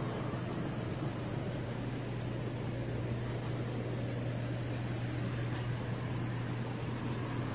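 Steady low mechanical hum under an even hiss, from the swim spa's running water pump and aeration.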